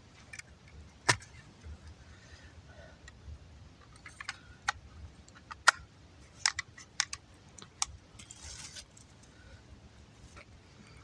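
Campfire crackling: scattered sharp pops and cracks from burning wood. A strong one comes about a second in and a quick cluster between about 4 and 8 s, with a brief hiss near the end.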